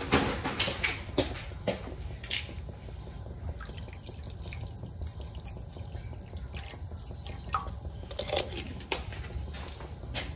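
Water poured from a plastic water bottle into a skillet of sauce, splashing and dripping into the liquid, with a few clicks and knocks in the first couple of seconds and again near the end.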